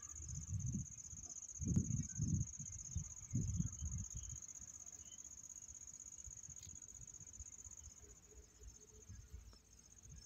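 A steady, high-pitched chorus of insects chirring from the grassy riverbank. There are low rumbles on the microphone during the first four seconds.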